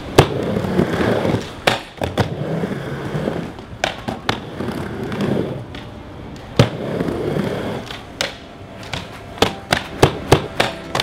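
Skateboard wheels rolling back and forth across a mini halfpipe ramp, the rolling swelling with each pass, broken by sharp clacks of the board and trucks hitting the coping. Near the end, music with a tapping beat fades in.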